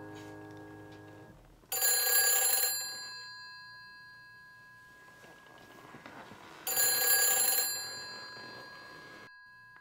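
Black rotary-dial telephone ringing twice, each ring lasting about a second and fading, the rings about five seconds apart.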